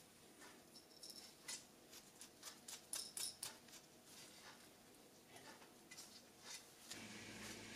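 Faint, irregular small clicks and ticks of small titanium pendant parts being handled and fitted together, thickest about three seconds in. A low steady hum comes in near the end.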